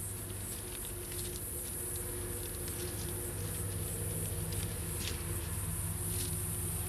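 Kittens scuffling and playing in a planter of soil and dry leaves: light rustling and scattered crackles of the leaves as they tumble about, over a steady background hum and high hiss.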